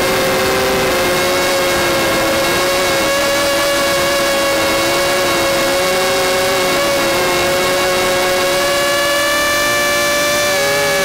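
Vortex quadcopter's brushless motors and propellers whining in flight, recorded close up by its onboard camera: a loud, steady buzz with two main pitches that waver slightly with the throttle and shift near the end.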